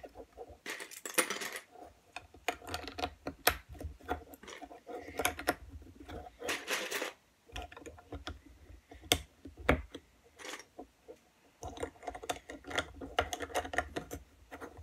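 Plastic LEGO bricks clicking and clattering as they are handled and pressed together onto a build, in irregular sharp clicks with a few short rattling bursts.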